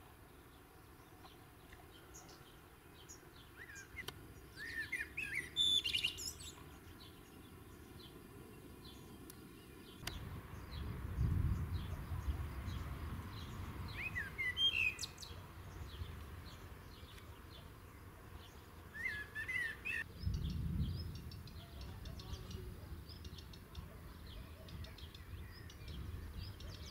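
Birds chirping in short bursts of quick rising and falling notes, with a low rumble swelling and fading twice, about midway and again about two-thirds through.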